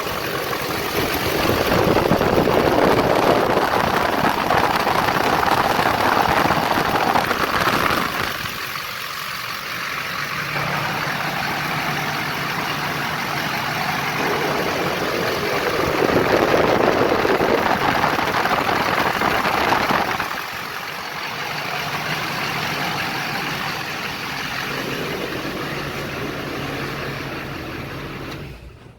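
LLY Duramax 6.6-litre V8 turbodiesel running, its engine fan locked solid by a welded-up fan clutch and rushing a lot of air through the cooling stack. The sound swells louder twice, for several seconds each time, and cuts off just before the end.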